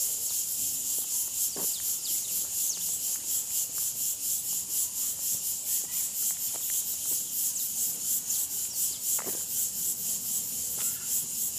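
A steady chorus of insects, a high-pitched chirring that pulses rapidly and evenly, with a few faint ticks underneath.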